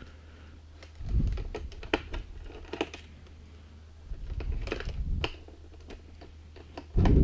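Hands working on an opened laptop: scattered sharp clicks and taps of small plastic parts and screws being handled, with dull knocks against the work surface about a second in, around four to five seconds in and near the end.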